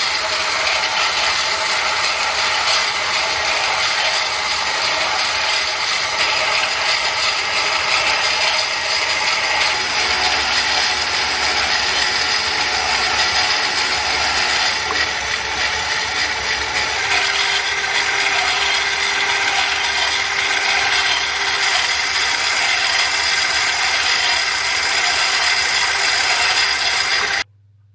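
Metal lathe turning a rotor shaft: a steady mechanical noise of the cutting tool and the machine's gearing, with several steady whining tones through it. It stops abruptly near the end.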